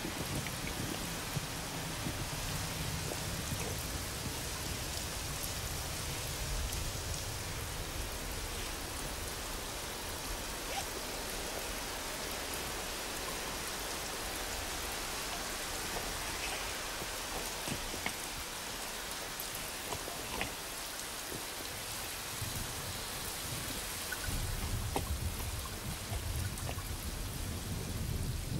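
Steady rain falling, with low thunder rumbling at the start and again near the end.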